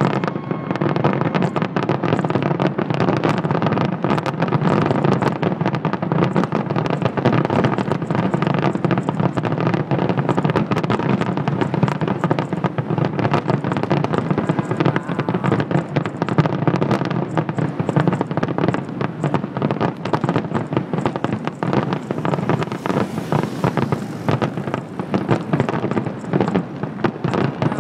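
Fireworks finale: a dense, continuous barrage of aerial shell bursts, many bangs and crackles a second running together with no let-up.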